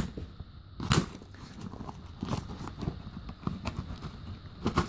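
Knives and a sharpening steel being packed back into a fabric tool bag: a sharp knock about a second in, then smaller irregular knocks and fabric rustling.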